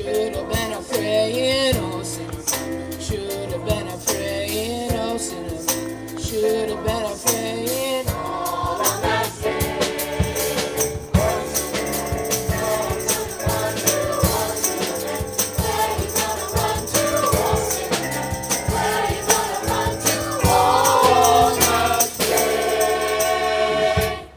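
A choir singing with a rhythmic percussion accompaniment, building to a louder held chord near the end and then stopping suddenly.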